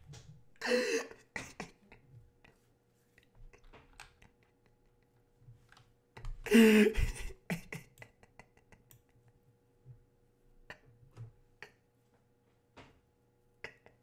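Scattered light clicks of a computer keyboard or mouse as a video is skipped back, with two short loud bursts of a voice, about a second in and again midway.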